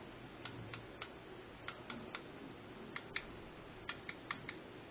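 Light fingertip taps on the glass touchscreen of a FNIRSI-1013D tablet oscilloscope, about a dozen short clicks in quick groups of two to four, over a faint steady hiss.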